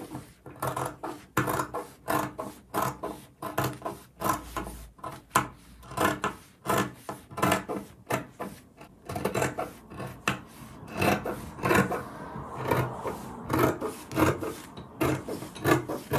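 Large fabric scissors cutting through folded printed fabric in steady strokes, about two snips a second, the blades closing on each stroke as they slide along the wooden table.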